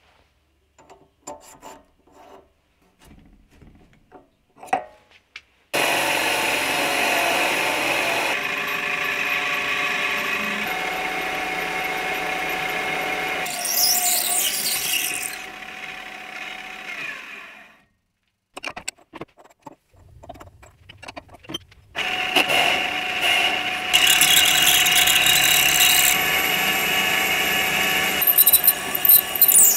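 Mini lathe motor running steadily while a twist drill in the tailstock chuck bores into the spinning workpiece, with high squeals from the cutting drill. The lathe stops about two-thirds of the way in, there are a few clicks as the drill is handled, and it starts again with a second, louder drilling pass. A few light clicks come before the first run.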